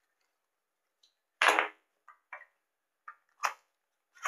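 Unboxing handling noise: a small cardboard accessory box being opened and its plastic-bagged camera mounts tipped out, heard as a string of short rustles and scrapes. The loudest comes about a second and a half in.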